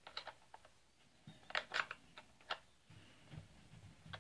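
Scattered light metallic clicks and taps of a spanner working the chainsaw's bar-mounting nuts as they are tightened down, a small cluster of them about halfway through.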